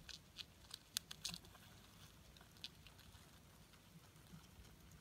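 Faint, scattered clicks and scratches from a Blaptica dubia roach colony crawling over and feeding on an orange. A quick run of ticks comes in the first second and a half, the sharpest about a second in, then one more tick a little later.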